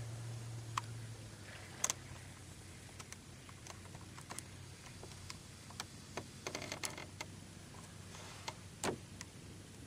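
Faint handling noise: scattered small clicks and light knocks, a few in quick clusters, over a low hum that fades out about a second in.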